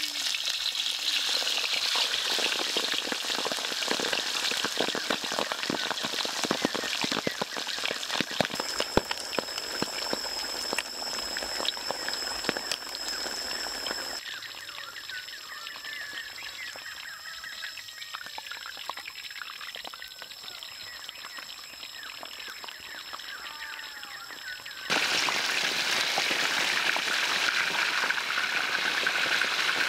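Pork belly slabs deep-frying in hot oil in a carbon-steel wok: steady sizzling and crackling with many small pops. It drops quieter for about ten seconds in the middle, then comes back loud near the end as a slab is lowered into the oil.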